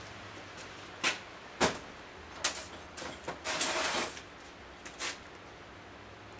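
Hard clicks and knocks of tools and parts being handled on a workbench, with a short rattle about three and a half seconds in, over a faint steady hum.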